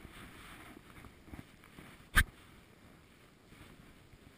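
A single sharp tap about two seconds in, much louder than the faint background noise around it.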